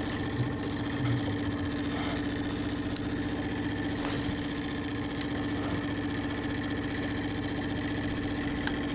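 A boat's outboard motor running steadily at low trolling speed, an even hum with a constant pitch. A few light clicks from the fishing tackle being handled sound over it, one sharper about three seconds in.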